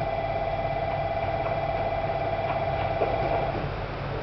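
Railway warning bell ringing steadily for a train approaching the station. It breaks off about three and a half seconds in, over a low rumble.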